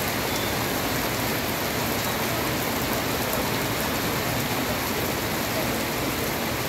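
Heavy rain falling steadily on a wet paved street: an even, unbroken hiss.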